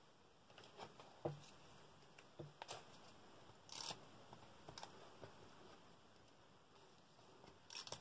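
Near silence with a few faint, scattered taps and short rustles of cut paper pieces being handled and laid on a collage journal page, the loudest rustle about four seconds in.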